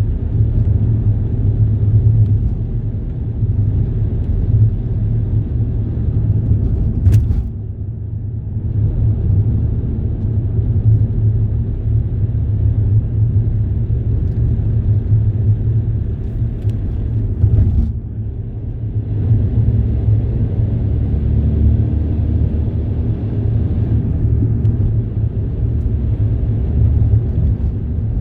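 Steady low rumble of a vehicle in motion, with its higher noise easing off briefly twice, about a quarter of the way in and again past halfway.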